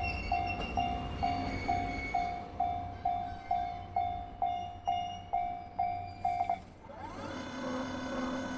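Japanese level-crossing warning bell ringing, a short electronic ding about twice a second, which stops about six and a half seconds in once the train has cleared the crossing. A steady mechanical hum sets in just after.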